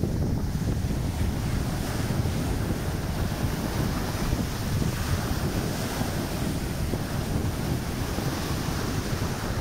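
Small sea waves breaking at the shoreline, with foamy wash running up and back over the sand in a steady surf sound.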